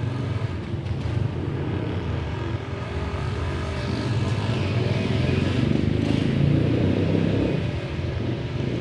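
An engine running steadily as a low rumble, getting somewhat louder about five seconds in and easing off again near the end.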